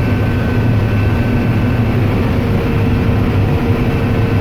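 Combine harvester running while shelling corn, heard from inside the cab: a steady, loud engine and threshing drone. A steady higher tone joins about two seconds in.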